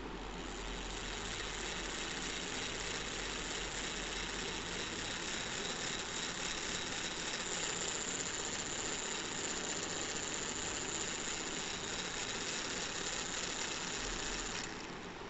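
Small DC motor driving the rear axle through a plastic spur gear, running with a steady high whine and gear whir. It is switched on just after the start and cuts off suddenly near the end.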